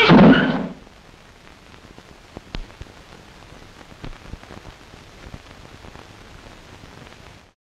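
Car tyres screeching as the car brakes hard, ending under a second in. Then a faint hiss with scattered crackles until the sound cuts out just before the end.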